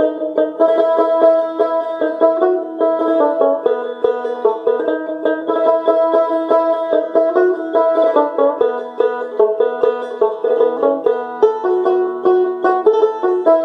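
Music: a quick, busy tune of short plucked notes, playing on without a break.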